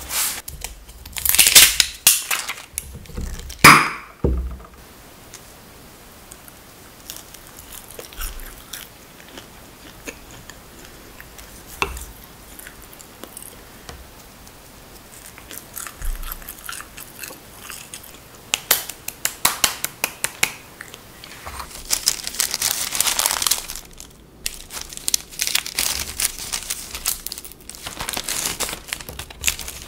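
Crisp crust of a no-knead campagne loaf crackling as pieces are torn off, loudest in the first few seconds, then scattered small crunches. In the last third, a long run of crackling and paper rustling as the loaf is sliced and baking paper is slipped between the slices.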